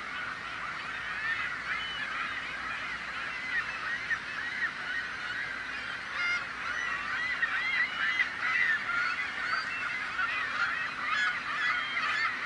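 A flock of gulls calling all at once: a dense din of many short overlapping calls, busier and louder in the second half.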